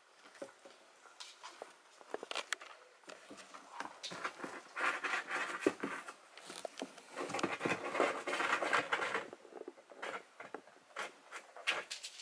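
A British Shorthair kitten playing with a power cord on a hard floor: a run of light clicks and taps from the plug and its claws, with two longer stretches of scuffling and scratching, about five and seven seconds in.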